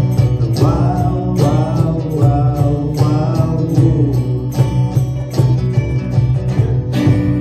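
Small band playing live: strummed electric and acoustic guitars over a steady cajon beat, with a sung vocal line through the first few seconds. Near the end the band hits a final chord and lets it ring on.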